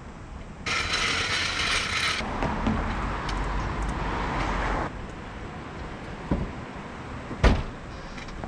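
Car jack being lowered under a Subaru WRX: a rasping mechanical noise for about four seconds, then two sharp knocks, the second the loudest, near the end.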